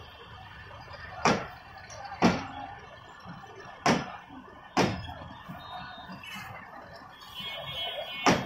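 Train wheels clacking over a rail joint as a slow-moving passenger train pulls out: five sharp knocks, mostly in pairs about a second apart, over a steady background noise.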